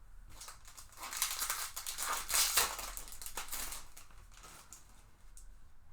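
Foil trading-card pack wrapper being torn open and crinkled by hand, a dense crackle that peaks about halfway through and then fades.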